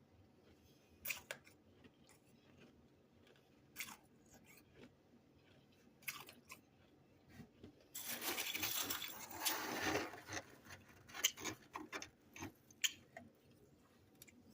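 Freezer frost chunks crunched between the teeth: a few sharp crackles, then dense crunching for about two seconds past the middle, then more scattered crunches.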